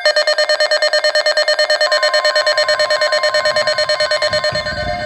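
Electronic alert tones: a harsh beeping pulse about ten times a second, joined about two seconds in by a steady high tone, with a faint low rumble underneath. Near the end it changes to a pattern of alternating tones.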